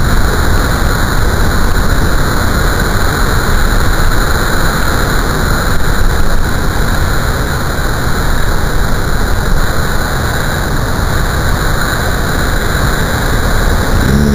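Large storm surf breaking and washing across the shore: a loud, continuous roar of crashing waves and foam.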